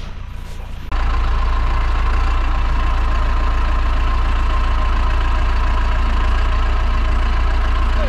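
Farm tractor's engine idling close by, a steady low running sound that comes in suddenly about a second in and holds evenly.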